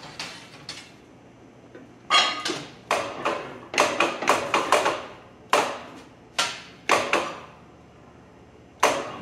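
Sharp metal knocks, about a dozen in irregular runs, each ringing briefly: a 1/8-inch steel plate being set and knocked into place between the steel rollers of a plate-rolling machine.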